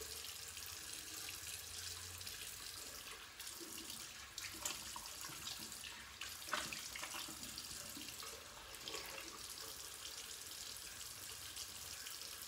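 Tap running into a bathroom sink as foaming cleanser is rinsed off the face, with short splashes of water every few seconds.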